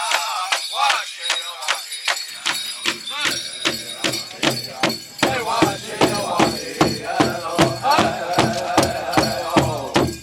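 Powwow big drum struck in a steady beat, about three strikes a second, under a group of singers singing a grass dance song, the singing loudest in the second half.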